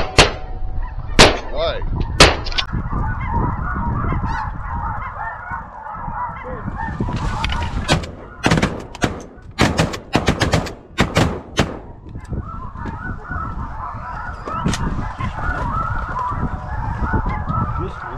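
A large flock of snow geese calls continuously in a high, yelping chatter, over a volley of shotgun fire: a few shots in the first couple of seconds, then a rapid string of about a dozen shots from several guns about halfway through.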